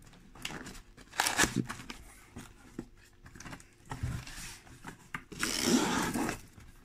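Cardboard box being handled and opened: scattered taps, knocks and scrapes of cardboard, with a longer, louder scraping rustle about five and a half seconds in.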